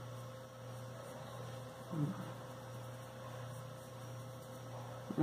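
A steady low electrical hum, with a brief faint vocal sound about two seconds in.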